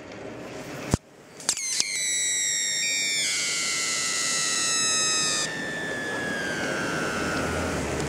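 A dandelion stem carrying 2000 volts from a microwave-oven transformer: a couple of sharp cracks about a second in, then a high whistling squeal with overtones that slowly falls in pitch until near the end.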